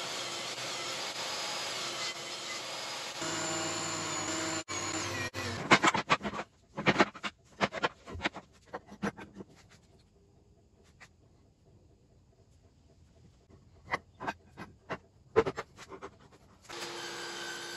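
A steady rushing noise for the first five seconds or so. Then a run of sharp wooden clacks and knocks as pallet boards are laid out and butted edge to edge on the table, a quiet stretch, and a few more knocks near the end as steel pipe clamps are fitted across the boards.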